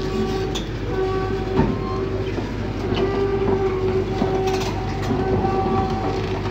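Kobelco crawler excavator running: a steady diesel drone with a whine that comes and goes every second or so, and scattered metallic clanks as the machine moves. One sharp knock stands out about a second and a half in.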